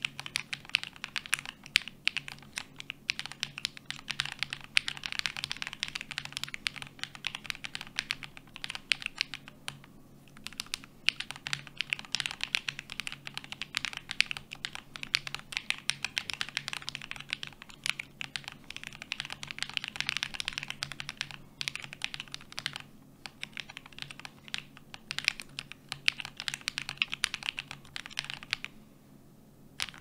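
Typing on a Libra Mini mechanical keyboard with Akko Snow Blue Grey switches, POM jelly keycaps and a microfibre tissue added inside: fast, steady, clacky keystrokes with a few brief pauses.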